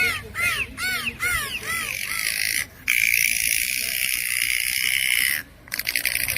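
Dolphin calls: a fast series of short high chirps that rise and fall, then a long, steady high squeal, and a rapid train of clicks near the end.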